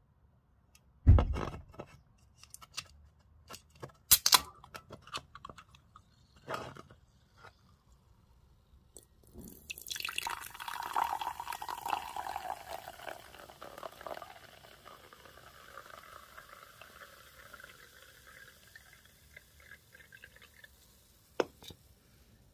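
Aluminium can of carbonated watermelon soda being opened: a thump and a few clicks as the ring-pull is worked, with a sharp crack about four seconds in. The soda is then poured into a glass for about five seconds and goes on hissing as it fizzes, with a single tap near the end.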